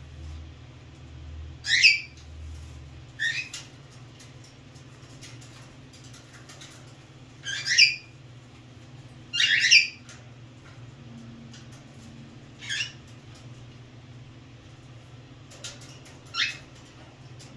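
Cockatiel giving about six short, high calls that drop in pitch, spaced a few seconds apart, the loudest about two, eight and ten seconds in, over a steady low hum.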